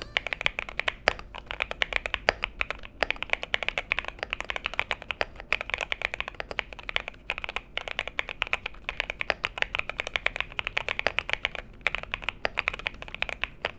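Cidoo V65 mechanical keyboard being typed on quickly: a fast, dense stream of key clicks, pausing briefly about three seconds in and again near the end.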